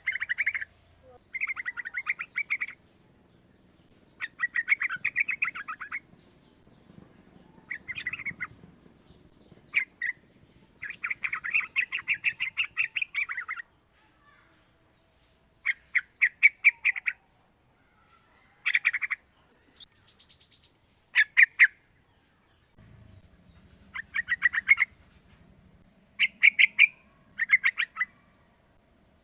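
Young yellow-vented bulbul calling: bursts of rapid chattering notes, each burst lasting from half a second to about three seconds, repeated with short pauses between them.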